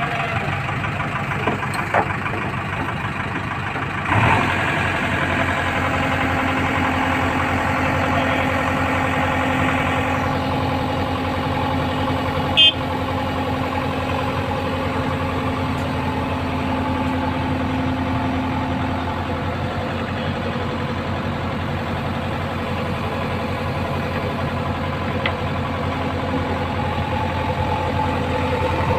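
Diesel engine of JCB earthmoving machinery running steadily. About four seconds in it picks up and runs louder, and there is a single sharp knock about twelve seconds in.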